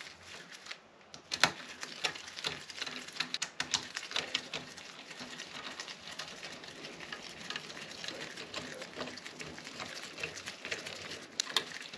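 Rain pattering on a shed roof: a dense, irregular run of small ticks, with a few sharper clicks standing out.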